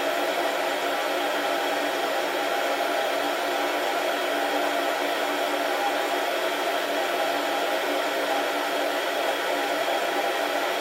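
Beanbon coffee roaster running mid-roast, its fan whirring steadily.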